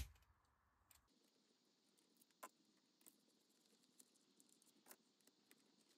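Near silence with a few faint, isolated clicks about a second apart, from about two seconds in, as a hand tool works on an engine's lower coolant manifold fittings.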